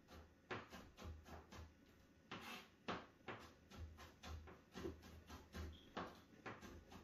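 Knife chopping cilantro and onion on a plastic cutting board: a run of short knocks, about two or three a second.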